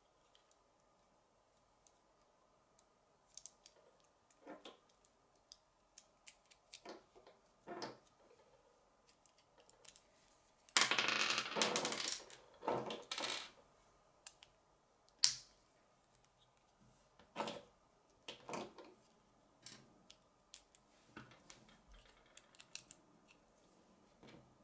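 Plastic K'nex rods and connectors clicking and snapping together as they are fitted by hand, in scattered clicks with a louder rattling stretch of a couple of seconds near the middle.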